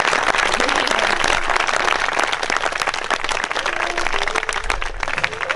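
A crowd of wedding guests applauding, many hands clapping at once.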